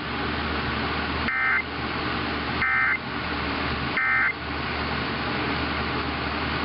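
Three short bursts of Emergency Alert System SAME digital data, the end-of-message code that closes a weather radio warning. They are high buzzy chirps about 1.3 s apart, heard over the steady hiss and hum of a weather radio's reception.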